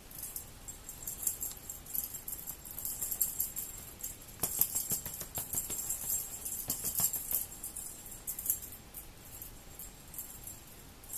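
Small bells jingling irregularly in shaken clusters, busiest in the middle, with a few soft knocks between them.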